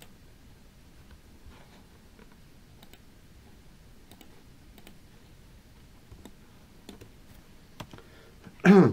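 Faint, scattered computer mouse clicks and keyboard taps. Near the end comes a short, loud burst of voice.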